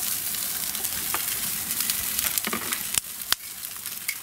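Denver cut beef steaks sizzling on the hot grate of a charcoal kamado grill, a steady hiss with a few sharp pops. This is the high-heat sear over the embers of a reverse sear, done to build a crust after smoking.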